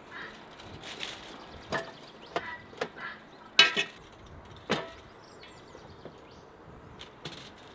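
A handful of sharp knocks and clinks, about six over three seconds, the loudest a little past three and a half seconds in with a short ring.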